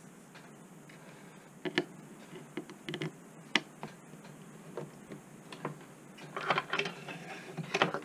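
Irregular clicks and light knocks of a printed circuit board and small hand tools being handled and set down on a wooden workbench, with a busier patch of clatter about six and a half seconds in.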